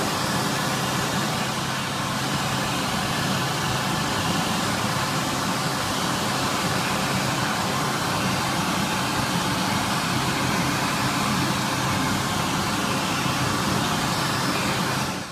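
Fumagalli Magnum push-button hand dryer running: a steady rush of air from its fan, with a low motor hum underneath.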